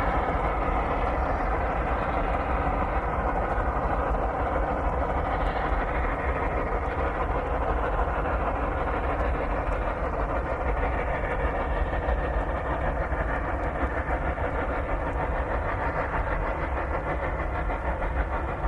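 A T class and a 400 class Garratt narrow-gauge steam locomotive double-heading a loaded ore train, working hard up a steep grade. Their exhaust beats run fast and blend into a steady, dense chuffing.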